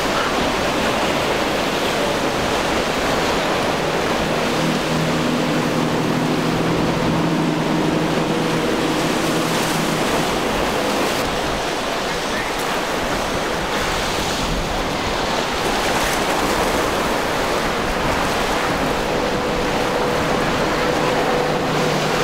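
Steady rush of waves and boat wakes, with the hum of passing outboard-powered boats: one engine tone comes through from about five to ten seconds in, another near the end.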